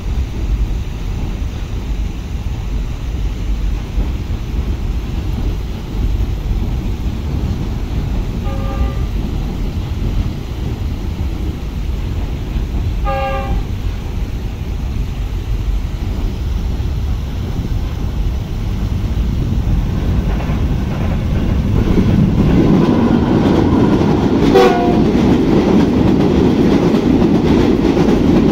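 Train wheels rumbling and clattering steadily across a steel girder rail bridge as a container freight train passes. A train horn gives two short blasts, about 9 and 13 seconds in. From about 22 seconds the rumble grows louder as a passenger train crosses, with another short horn note a little later.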